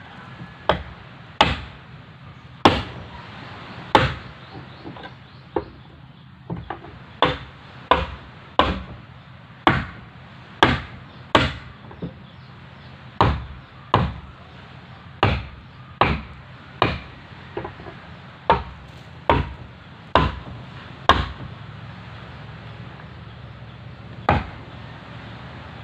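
A wooden mallet knocking wooden wedges along a wooden boat's gunwale: a long run of single, sharp wooden knocks, under a second apart. It pauses briefly about halfway, and one last knock comes near the end.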